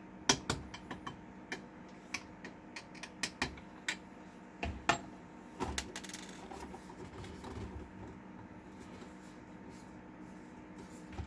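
Scattered sharp clicks and taps of small hard parts being handled during the printer's disassembly, thickest in the first few seconds and thinning out after about six seconds.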